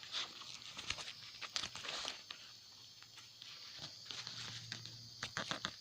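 Faint rustling and small clicks from handling salvaged 18650 lithium-ion cells and meter probes, with a faint low hum in the second half.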